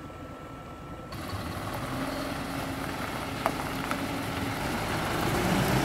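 Diesel engine of an Isuzu flatbed recovery truck running, growing steadily louder, with a single short click about three and a half seconds in.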